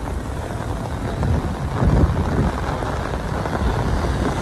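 Heavy rain falling steadily, with a louder low rumble about two seconds in.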